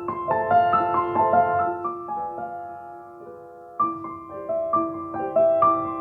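Background music: a gentle solo piano melody, notes played in small clusters and left to ring.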